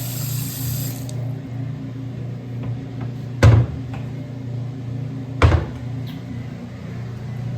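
Running faucet water shuts off about a second in. Then come two sharp clunks about two seconds apart, like a cabinet door or a porcelain lid being handled, over a steady low hum.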